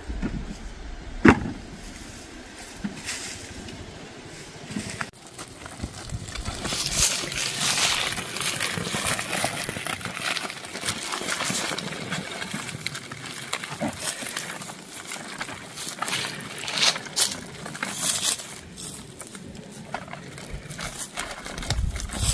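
Woven plastic sacks rustling and crinkling as they are filled with apples and handled, with a sharp knock about a second in.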